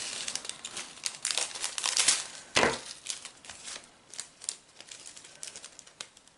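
Foil and plastic packets of diamond painting drills crinkling and rustling as they are handled, in irregular crackly bursts, loudest about two and a half seconds in, then quieter scattered crackles.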